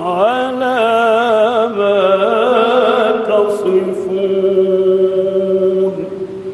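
A man chanting a Quran recitation in ornamented, melodic tajweed style. One long drawn-out phrase slides up at the start, wavers through melismatic ornaments, then holds a steady note that fades out about six seconds in.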